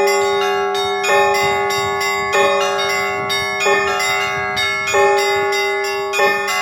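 Church bells ringing: a large bell with a deep, long-ringing note is struck about every 1.3 seconds, while several smaller, higher-pitched bells are rung in a quick, busy pattern between its strokes.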